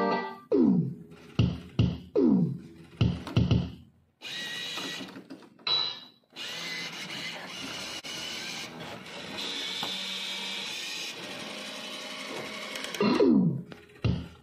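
Electronic sound effects from a CIRSA 'La Máquina del Tiempo' slot machine: several short falling-pitch blips, then about nine seconds of a steady noisy effect with a high tone in it while the time-travel bonus screen plays, and a few more falling blips near the end as the reels spin again.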